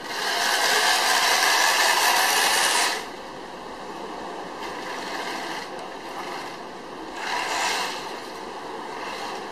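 Toy radio-controlled tank running on asphalt: a loud rushing, grinding noise from its drive and tracks that stops suddenly about three seconds in, with a second, shorter burst around seven seconds in.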